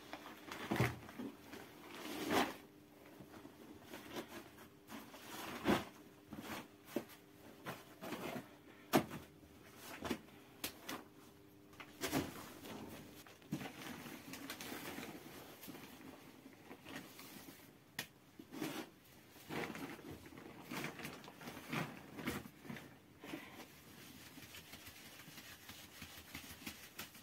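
Cloth and a plastic sheet being handled and spread on a floor: rustling with scattered sharp knocks and thuds. Later, a round flour sieve being shaken and knocked, with flour rustling through the mesh.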